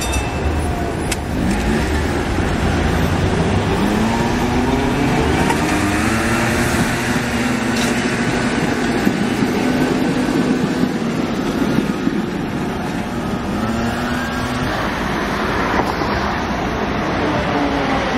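Articulated electric tram pulling away and passing close by, its traction motors whining in several rising glides that step up one after another as it gathers speed, over city traffic noise.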